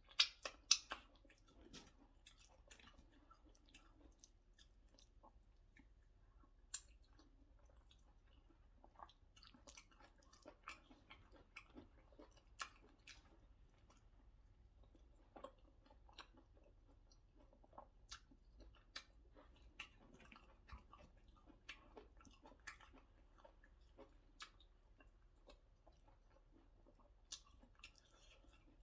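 Close-miked chewing and wet mouth sounds from eating soft white starch with egusi soup: scattered sharp smacks and clicks at irregular intervals, the loudest in the first second.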